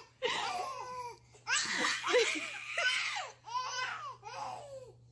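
Twin babies laughing in about three bursts of high-pitched giggles, with short pauses for breath between them.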